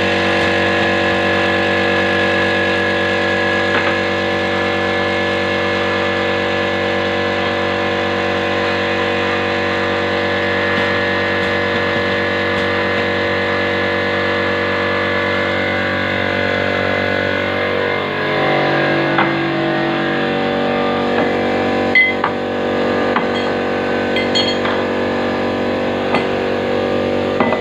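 A motor running with a steady hum made of several even tones; about two-thirds of the way in its tone changes, and a few light clicks follow.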